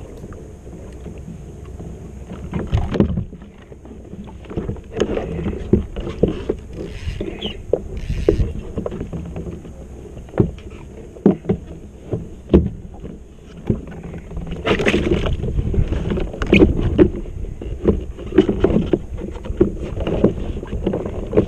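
Irregular knocks and clicks of fishing gear being handled against a plastic kayak hull, over a low rumble of wind on the microphone.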